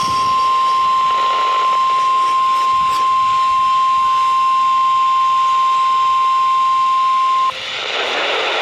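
NOAA Weather Radio 1050 Hz warning alarm tone: a single loud, steady tone that cuts off sharply about seven and a half seconds in. It signals that a warning broadcast follows.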